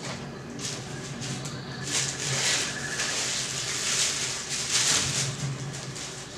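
Thin white wrapping rustling and crinkling as it is pulled off a small statue part by hand, unevenly and loudest in the middle.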